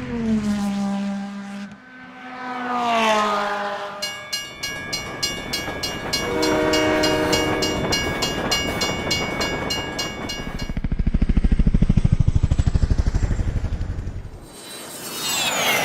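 A sequence of railway sound effects: a train horn passing twice, its chord dropping in pitch as it goes by, then a railroad crossing signal bell ringing steadily, with a low horn chord sounding about halfway through it. This gives way to a rapid low throbbing, and near the end a high whine falls in pitch.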